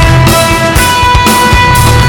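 Loud rock backing music accompanying the act.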